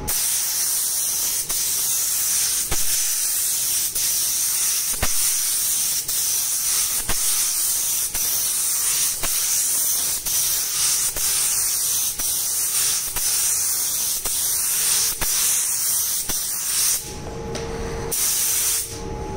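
Compressed-air paint spray gun hissing steadily as it sprays a wet-on-wet primer coat. The spray stops about seventeen seconds in, then comes back in a short burst just before the end.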